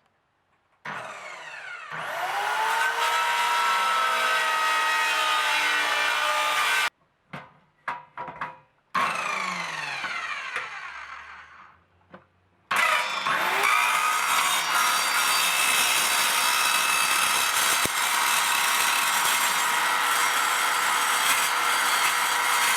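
A handheld power grinder working the rusted sheet steel of a truck door bottom. It spins up with a rising whine about a second in and runs with a steady high whine, then cuts off suddenly. It winds down with a falling whine and spins up again about halfway through, running steadily from there.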